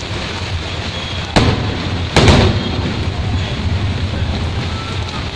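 Two firework shells bursting overhead, about a second apart, the second louder with a short rumbling tail, over a steady hiss of rain and street noise.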